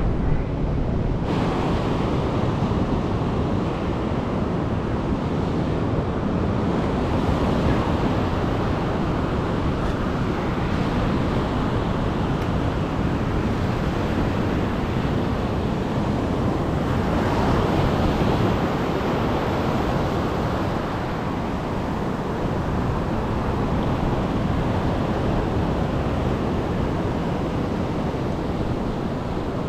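Ocean surf breaking and washing up a sandy beach: a steady rush of noise that swells a little now and then, with wind buffeting the microphone.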